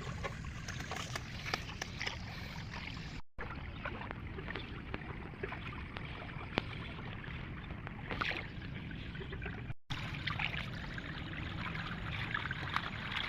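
Floodwater running and trickling, with scattered small splashes and knocks; the sound breaks off briefly twice.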